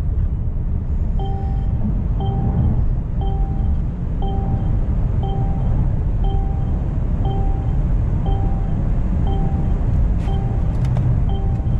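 Steady low road and wind rumble inside the cabin of a Mercedes-Benz EQC 400 electric SUV accelerating at full power through 110 to 170 km/h. Over it, a short dashboard warning chime beeps about once a second from about a second in: the 'maximum speed exceeded' alert for a set 120 km/h limit. Two sharp clicks near the end.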